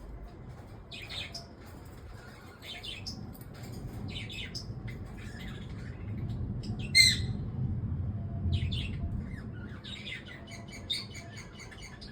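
Pet lovebirds chirping and squawking in short, high calls every second or two, the loudest about seven seconds in.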